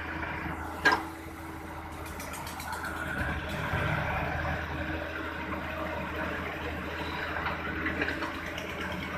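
Diesel engine of a Kato tracked hydraulic excavator running steadily while the machine digs and scoops soil, with one sharp knock about a second in.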